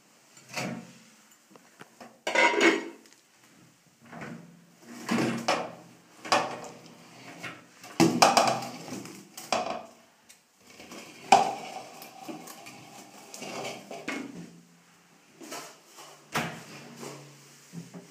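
A metal cooking pot and its glass lid knocking and clattering in irregular bursts, some knocks followed by a brief ringing.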